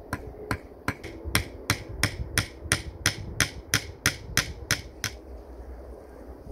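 A hammer tapping in a steady rhythm: about fifteen sharp, evenly spaced blows, roughly three a second, stopping about five seconds in.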